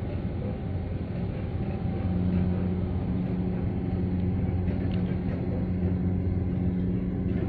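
Low, steady drone of a container ship's engines as the ship passes close under way, growing louder about two seconds in.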